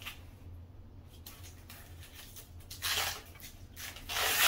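Rustling and rubbing from gloved hands handling the bicycle's front end, in two short bursts about three seconds in and near the end, over a faint steady low hum.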